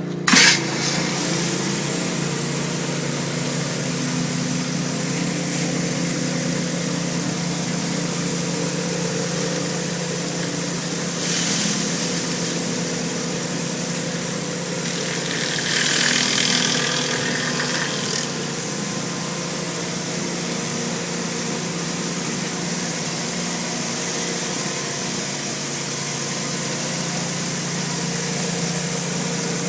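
Engine of a hot-water pressure washer running steadily under a constant hiss. A short, sharp loud burst comes right at the start. The hiss swells twice, briefly about 11 seconds in and again for a couple of seconds around 16 seconds in.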